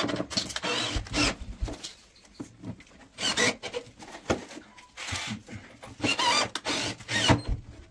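Irregular rubbing and scraping strokes of hand work on wood, about five or six of them with short pauses between.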